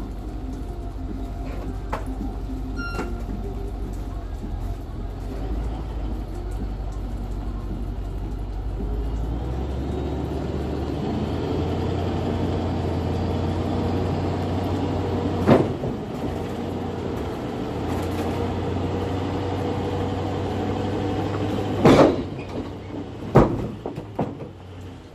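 Truck engine running as the truck pulls its flatbed trailer forward, the engine note shifting up about ten seconds in. A bundle of wooden I-joists slides off the trailer deck onto the gravel, with three heavy knocks in the second half.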